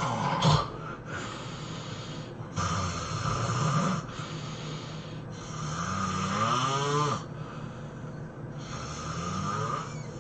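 A person snoring heavily: a sharp, loud sound about half a second in, then four long snores spaced about two to three seconds apart, one of them with a rising, whistle-like tone.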